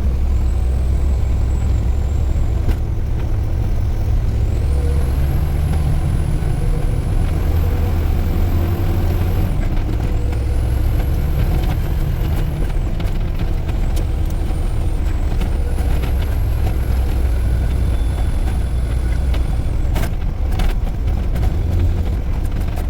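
Heavy diesel engine of a concrete pump truck under way, with a steady low drone. A thin high whine rises, holds and falls away three times as the truck pulls and changes gear. A few sharp clicks come near the end.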